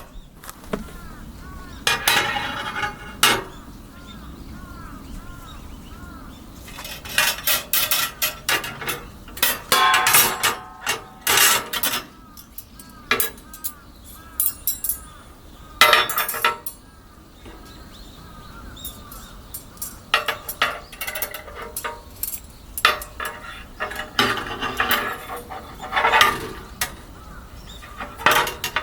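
Intermittent clinking and clattering of metal camping cookware and gear being handled and set down, in clusters of sharp knocks with quieter stretches between.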